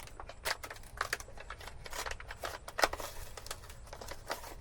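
Wet paper instruction sheets being handled and pried apart: irregular crackling and rustling of paper.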